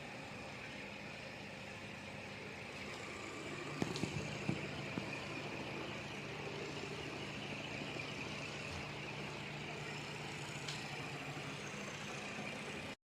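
56-inch ceiling fan with iron blades running: a steady whir with a faint high whine and a low motor hum that grows stronger a few seconds in. A few sharp clicks come about four seconds in, and the sound cuts off abruptly near the end.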